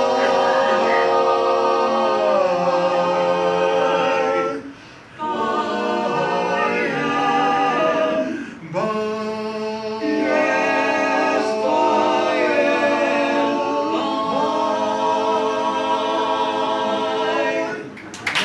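Men's barbershop chorus singing a cappella in close harmony, holding long sustained chords in three phrases with two brief breaks between them, as the song ends.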